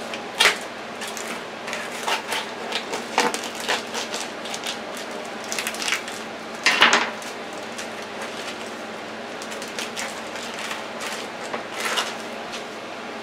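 Plastic kielbasa package rustling and crinkling as it is handled and opened, with scattered clicks and knocks on the counter. The loudest crackle comes a little under seven seconds in.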